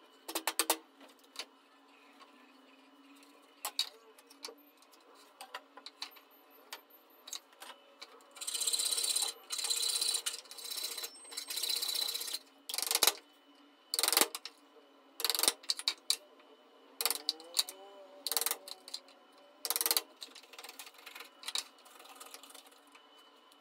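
Hand saw cutting through small pine pieces in runs of quick strokes from about a third of the way in, with sharp knocks of the wooden pieces being set down and shifted on the workbench.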